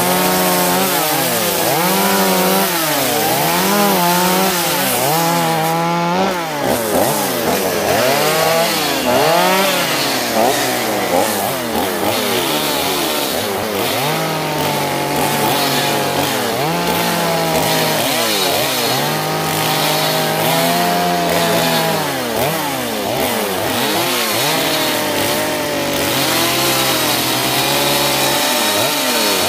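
Two-stroke chainsaw carving into a wooden log, its engine revving up and down over and over as the throttle is worked through short cuts, with a few briefly steady stretches.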